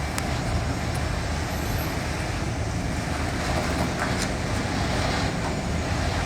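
Heavy diesel vehicle engines running with a steady low rumble amid street traffic, while a tow truck holds a stuck bus jacked up; a few faint clicks sound over it.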